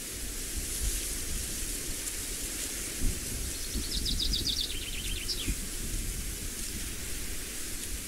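Steady outdoor noise with wind rumbling on the microphone and a high hiss. About four seconds in, a small bird sings a short rapid trill that ends in a quick falling note.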